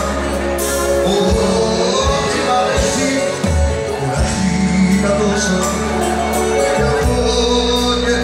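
Loud live band music with singing over a steady bass line.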